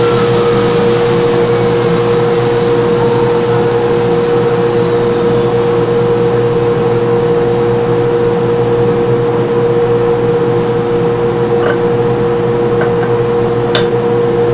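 Bacci spoke-turning lathe machinery running steadily without cutting: an even mechanical hum with two steady tones. A high whine falls in pitch over the first few seconds, and there are a few faint clicks as finished wooden spokes are taken out of the machine.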